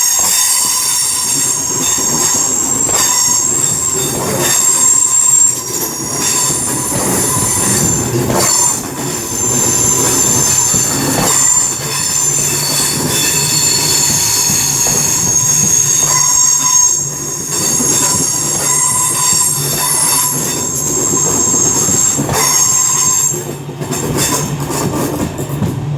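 Class 323 electric multiple unit's wheels squealing loudly against the rails as it moves through, a shrill multi-toned screech held for over twenty seconds with occasional knocks of wheels over rail joints, easing off near the end.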